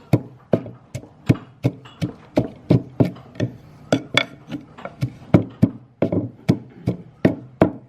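Pestle pounding in a mortar, about three strikes a second, each with a short ring, crushing peanuts and dried shrimp for som tam.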